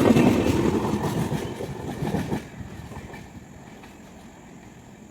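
Express passenger train passing at high speed over a level crossing, its wheels clattering rhythmically on the rails. The noise drops away sharply about two and a half seconds in as the train clears, leaving only a faint background hiss.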